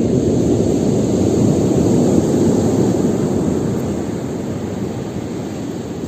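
Storm surf on the Black Sea: a loud, steady roar of breaking waves that swells over the first two or three seconds and then eases.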